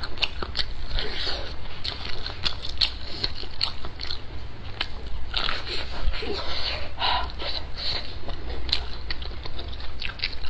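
Close-miked biting and chewing of boiled yellow waxy corn on the cob, kernels breaking off in many small rapid clicks and crackles.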